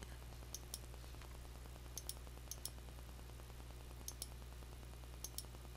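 Computer mouse button clicked five times at irregular intervals, each click a quick double tick of press and release, over a steady low hum.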